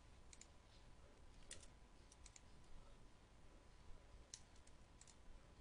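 Near silence broken by about ten faint, scattered clicks of a computer keyboard and mouse, some coming in quick pairs.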